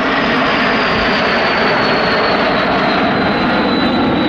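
Twin Turbomeca Marboré turbojets of a formation of Fouga Magister jets flying past: a loud, steady jet rush with a high whine slowly falling in pitch.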